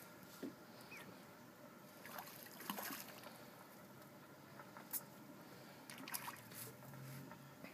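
Quiet water sounds from around a small boat on a lake, faint trickling and lapping, with a few short sharp clicks scattered through.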